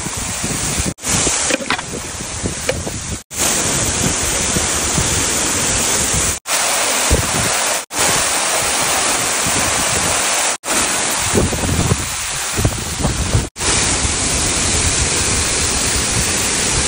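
Waterfall rushing steadily: a continuous loud hiss of falling water, broken six times by brief dropouts.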